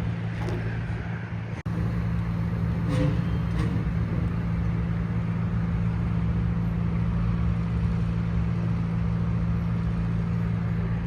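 Steady engine idle rumble with road traffic passing. The sound drops out for an instant about a second and a half in.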